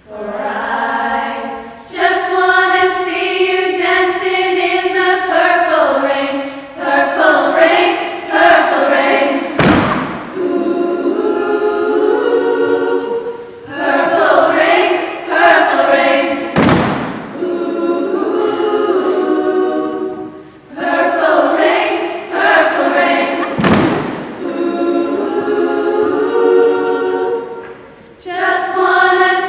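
A schoolgirls' choir singing, with a few brief breaks between phrases. Three sharp thumps, spaced about seven seconds apart, cut through the singing.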